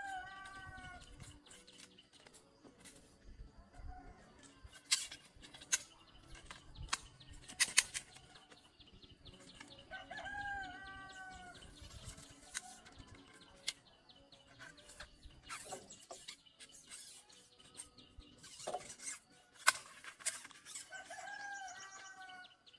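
A rooster crowing three times, roughly ten seconds apart, each crow a falling call of a second or so. Scattered sharp knocks and clicks sound between the crows, and the two loudest knocks are louder than the crows.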